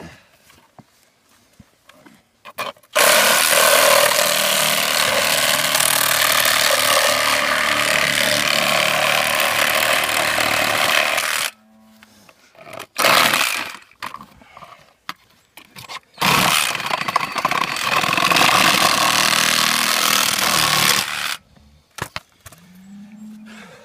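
Power tool cutting a length of pipe for a calf's leg splint. It runs in two long stretches of several seconds each, with a short burst between them.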